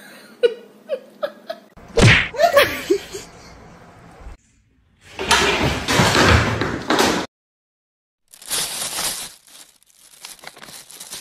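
Several short, unrelated sounds cut together, each ending in a sudden silence: a few faint short cries, then a sharp bang about two seconds in. Later come two stretches of noisy clatter and rustling, the first one loud.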